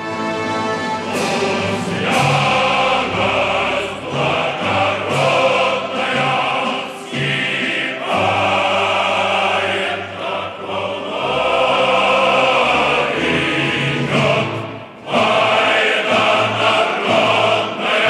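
Choral music: a choir singing sustained chords that change every second or two, as a soundtrack.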